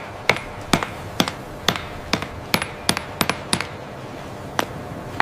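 Mallet striking a chisel into stone in a series of sharp, ringing taps, roughly two a second, about ten strokes, with one last strike after a short pause near the end.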